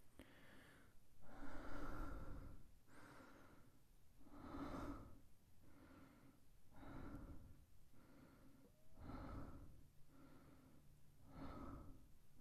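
Binaural ear-licking ASMR: a man's soft breaths and wet mouth sounds close against the microphone's ear, coming in quiet pulses roughly once a second.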